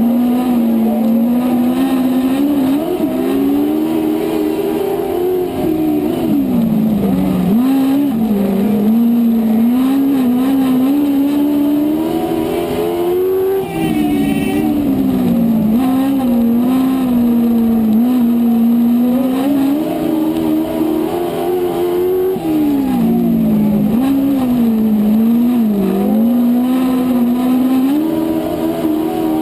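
Dwarf race car's motorcycle-derived engine heard from on board at racing speed on a dirt oval. Its pitch climbs down each straight and drops off into each turn, a cycle of about eight seconds, with the engines of the surrounding race cars mixed in.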